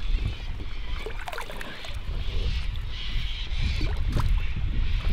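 Wind rumbling on the microphone over water noise around a small fishing boat, with a few short whistle-like sounds falling in pitch.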